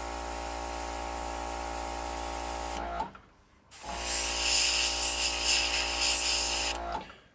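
Dual-action airbrush spraying paint, fed by a small air compressor that runs with a steady hum and a hiss of air. About three seconds in the whole sound cuts out for under a second, then returns with a stronger spray hiss.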